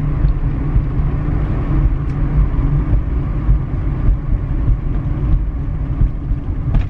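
Steady low rumble of a car driving, heard from inside the moving car.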